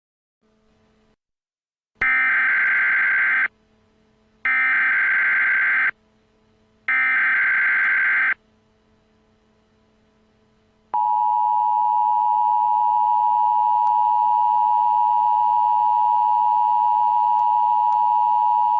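Emergency Alert System tones: three short bursts of warbling data tones (the SAME header), a second apart, then about eleven seconds in the steady two-tone EAS attention signal starts and holds.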